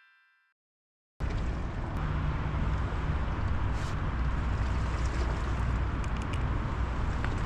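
Steady outdoor wind noise buffeting the microphone: a low rumble under a broad even hiss. It starts abruptly about a second in, after a brief silence.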